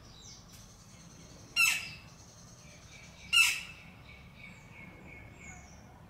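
Two loud, short, harsh sounds about two seconds apart from a flameback woodpecker bathing in a water-filled container, against faint chirping of small birds.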